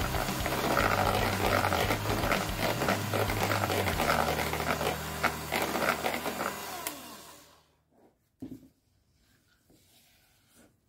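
Electric hand mixer beating cupcake batter in a plastic jug: a steady motor hum with rapid clicks from the beaters. The sound fades away about seven seconds in, leaving near silence with one brief soft sound.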